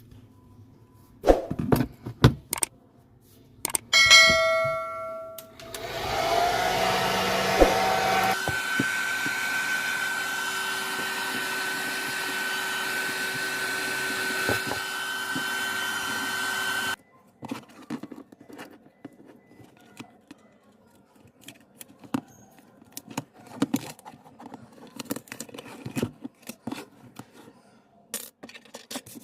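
Hot air gun blowing steadily for about eleven seconds, its fan rising in pitch as it spins up and cutting off suddenly, the heat used to soften a phone screen's adhesive. Before it come a few clicks and a short ringing tone; after it, light clicks and taps of tools on the phone.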